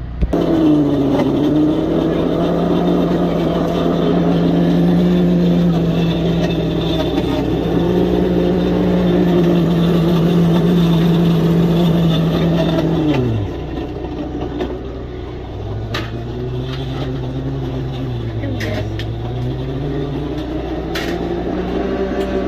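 A motor running at a steady pitch, which winds down quickly and stops about 13 seconds in. A lower, wavering motor hum follows, with a few sharp clicks.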